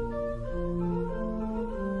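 Church organ playing held chords, several voices sounding at once and moving to new notes about every half second to a second.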